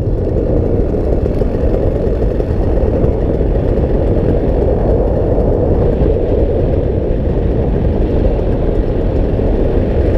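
Steady, loud rush of wind over the microphone as a paramotor pilot glides through the air, with no clear engine tone.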